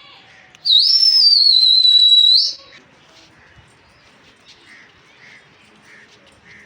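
A loud, shrill human whistle held for about two seconds. It lifts briefly in pitch, holds steady, then cuts off, the kind of whistle pigeon flyers use to signal their flock. After it only faint soft sounds remain.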